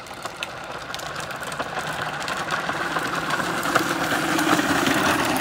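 Plastic wheels of a child's ride-on trike rolling down a concrete sidewalk, a rough rumbling grind that grows steadily louder as the trike approaches.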